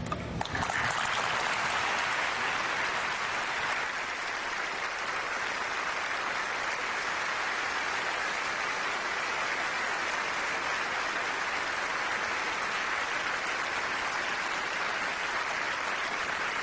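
Large audience applauding, beginning about half a second in and holding steady.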